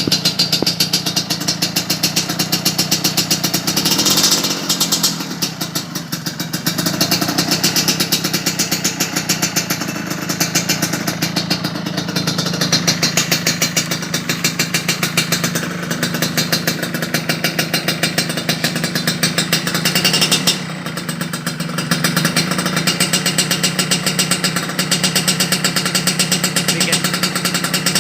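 Kawasaki AR80 two-stroke motorcycle engine running through an "S"-type high-mount expansion-chamber exhaust, holding a steady idle with a rapid, even exhaust beat. Twice, about four seconds in and again about twenty seconds in, the level briefly swells and then dips.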